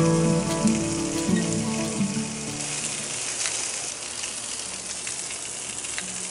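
Chicken thighs sizzling on a cast iron Sportsman's grill grate over hot charcoal: a steady frying hiss. Background music plays over it at first and fades out after about two seconds.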